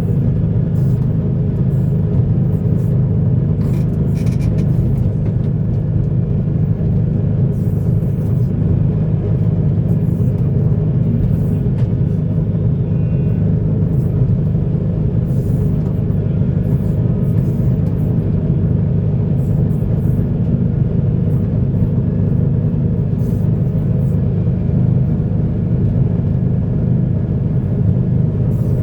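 Heavy diesel earthmoving machinery running steadily: a deep, even engine rumble, with faint scattered clicks on top.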